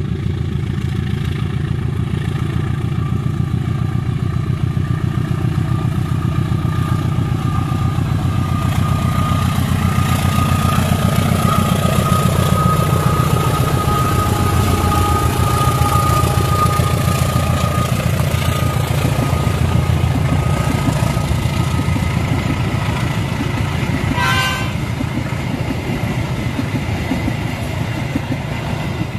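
Passenger train passing close by: the diesel locomotive's engine rumble builds to its loudest about 12 s in as it passes, with a steady whine over it, then the carriages roll past on the rails. A brief higher tone sounds about 24 s in.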